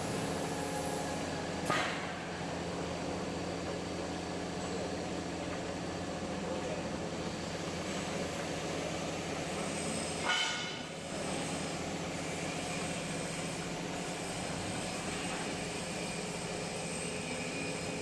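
A duplex lock forming machine running steadily, its electric motor and forming rolls humming and rattling as a sheet-metal edge is rolled into a duplex lock. Two brief knocks come about two seconds in and again about ten seconds in.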